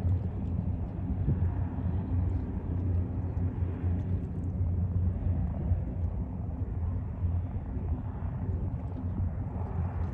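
De Havilland DHC-3 Otter floatplane climbing away just after takeoff, its engine and propeller giving a steady low rumble.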